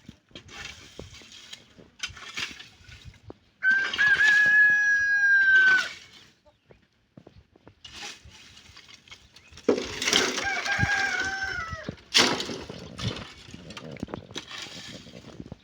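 Rooster crowing twice, each crow a long, held call, the second starting about six seconds after the first. Short rustling noises come in between.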